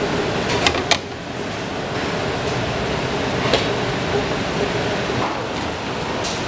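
Steady hiss of commercial kitchen background noise, like a running exhaust fan, with a couple of sharp clicks a little under a second in and another click a few seconds later.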